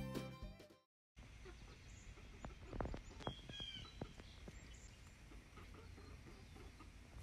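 Fiddle music fades out during the first second and cuts to a brief silence, then faint outdoor sound of backyard hens foraging on grass: scattered soft clicks and a short, high chirping call about three seconds in.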